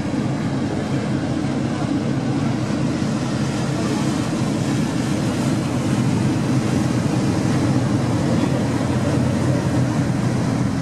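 Passenger ferry's engine running with a steady low drone, heard from on board, under a steady hiss.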